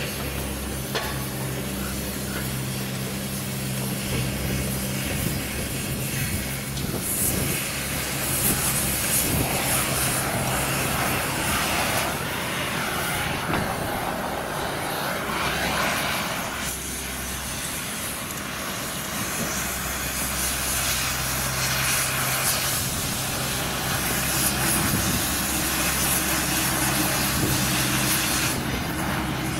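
A steady low engine drone. A louder rushing noise swells up in the middle and fades away, and then the drone carries on.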